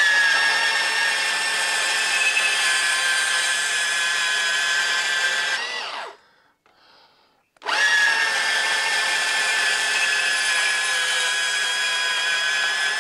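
Makita cordless portable bandsaw with an 18-teeth-per-inch standard blade cutting thin-wall steel box section, a steady motor whine under load. It runs for about six seconds, stops, then starts again about a second and a half later and keeps cutting.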